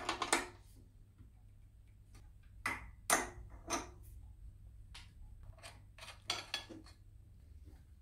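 Irregular metal clinks and knocks of a steel open-end spanner and socket against the crank bolt of a bicycle's square-taper crankset, about eight separate hits with the loudest near the start.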